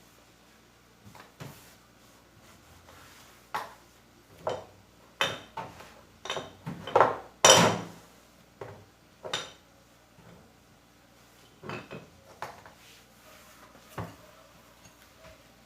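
Dishes and cutlery being handled and set down: a string of irregular clinks and knocks, thickest in the middle, with the loudest clatter about halfway through ringing briefly.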